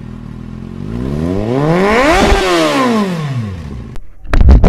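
Motorcycle engine revving, its pitch rising for about a second and a half and then falling back. A few sharp, loud knocks follow near the end.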